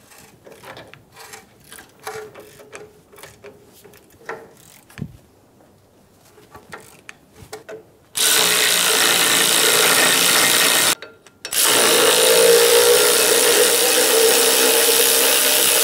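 Hand ratchet clicking irregularly as the 18 mm caliper bracket bolts are broken loose. About eight seconds in, a cordless power tool takes over, running loud and steady for about three seconds, pausing briefly, then running again to spin the bolts out.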